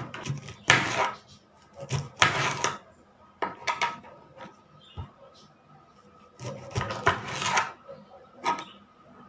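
Knife slicing a lemon into rounds on a cutting board: a handful of irregular cuts and knocks, with quiet gaps between.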